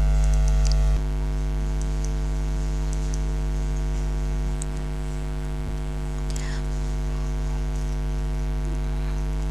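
Steady electrical mains hum with many overtones, a little louder for the first second.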